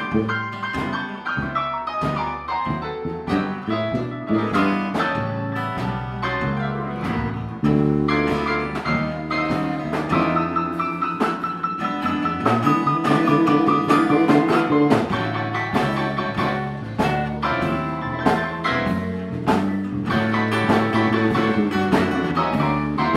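Live blues band playing an instrumental passage on drum kit, electric bass, acoustic guitar and keyboard. A high held note comes in about ten seconds in and bends slightly down.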